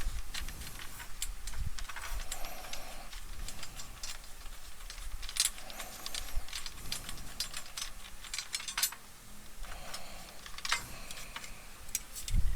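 Irregular small clicks, taps and light rattles as a small stage light is handled and taken apart by hand.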